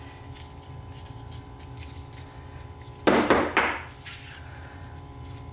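A short burst of metal clattering about three seconds in, lasting under a second, as a ratchet is set down on a wooden workbench beside the starter in the vise. A steady low hum runs underneath.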